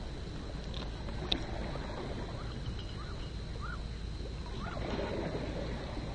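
Steady low rumble, with a single sharp click about a second in and a few short chirps, each rising then falling, spaced about a second apart from about three seconds in.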